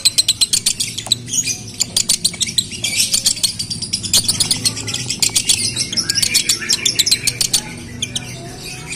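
Male Fischer's lovebird singing a long, unbroken run of rapid chirps and chattering clicks. This is the 'konslet' style of song of a male in breeding condition.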